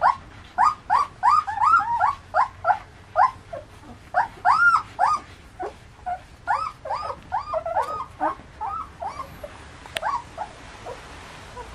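Fifteen-day-old German Shepherd puppies whining and squealing while nursing, a rapid string of short, high cries that rise and fall in pitch. The cries thin out after about nine seconds, and there is a single click about ten seconds in.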